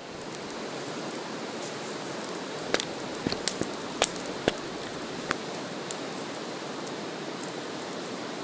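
Steady rushing noise, with a few sharp clicks or pops between about three and five seconds in.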